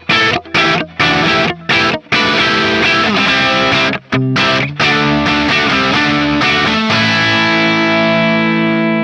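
Distorted electric guitar played through the Tonocracy amp-modeler plugin's stock preset of gate, drive, amp, cab, reverb and delay. It starts with several short, chopped chords, then moves to longer held chords, and the last one rings for about two seconds.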